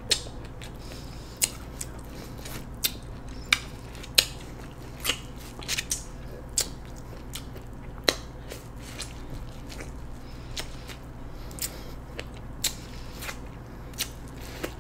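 Person biting and chewing kernels off an ear of seafood-boil corn on the cob, close to the microphone: sharp crunches and mouth clicks at irregular intervals.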